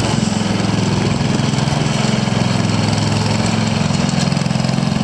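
John Deere 110 lawn and garden tractor's single-cylinder Kohler engine running steadily as the tractor is driven slowly.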